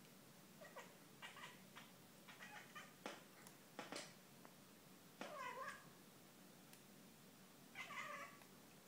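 Domestic cat making odd vocal noises: a run of short, faint calls in the first few seconds, then two longer meow-like calls whose pitch bends, about five and eight seconds in.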